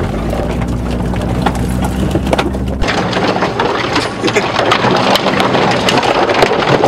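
Car engine running with a steady low hum, heard inside the cabin. About three seconds in, thorny branches and brush start scraping and crackling along the car's body and windows, a dense stream of sharp ticks and scratches.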